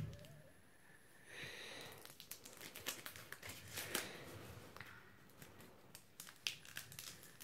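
Faint crinkling and tearing of a shiny trading-card pack wrapper being picked open by hand, with scattered small crackles and a brief rustle about a second and a half in.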